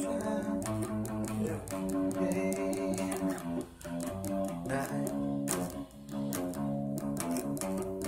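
Music led by plucked guitar, with held notes and a run of sharp percussive ticks.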